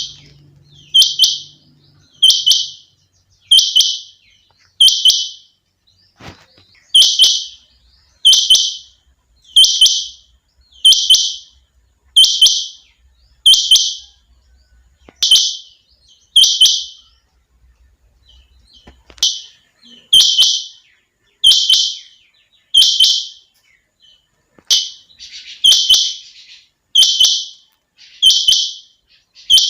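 Female rain quail calling: a short, high note repeated about once every second and a quarter, each starting with a sharp click, with brief breaks about six seconds in and again past the middle.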